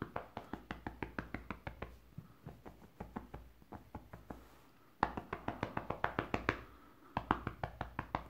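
A hand tapping and scratching quickly on a fabric-covered cushion, about six strokes a second, in three spells with short pauses between them, done to call a cat over.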